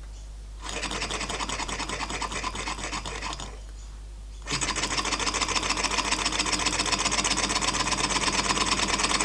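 Small beta Stirling hot air engine turned over by hand at the flywheel and running with a rapid, even mechanical clatter. It runs for about three seconds and dies, then is spun again about four and a half seconds in and keeps running, getting slightly louder.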